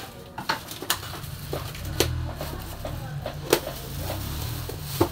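Bubble-wrap plastic packaging being pulled open by hand, crinkling with sharp crackles and snaps, the loudest about two, three and a half and five seconds in.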